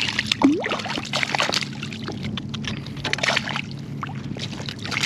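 Boat motor running steadily with a low hum, with water splashing and sloshing around it.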